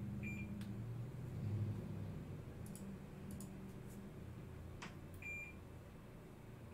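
Digital multimeter giving short, high beeps, twice, about five seconds apart, with a few sharp clicks in between, over a low rumble that fades after the first couple of seconds.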